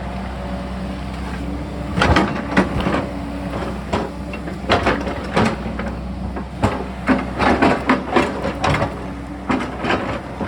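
Sany excavator's diesel engine running steadily while the machine works rock, with a string of irregular clanks, knocks and crunches of rock and steel starting about two seconds in.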